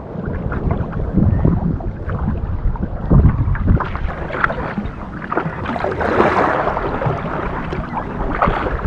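Water sloshing and splashing around a kayak at sea, with wind buffeting the microphone in low thumps. From about four seconds in, a louder rushing splash builds.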